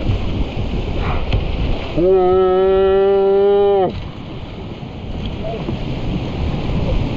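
Whitewater rapid rushing and splashing steadily around a tandem kayak as it rides through the waves. About two seconds in, a person lets out a long held yell on one steady pitch that lasts about two seconds and cuts off sharply.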